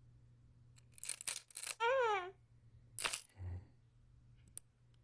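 Buckles and latches on a buckle board being handled: a clatter of clicks and rustling about a second in, then a single sharp snap just after three seconds, with a duller knock and a small click after it. A child's short rising-and-falling vocal sound comes near two seconds.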